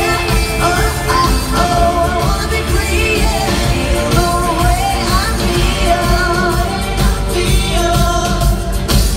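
A woman singing lead into a microphone over a live pop-rock band with electric guitar, heavy bass and drums, recorded by a phone in the arena audience.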